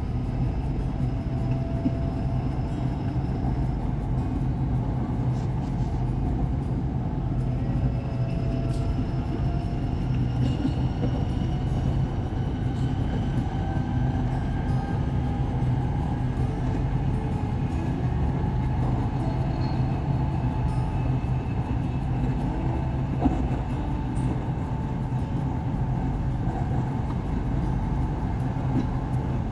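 SRT Red Line electric commuter train running, a steady rumble with several faint whining tones that rise slowly in pitch as the train gathers speed.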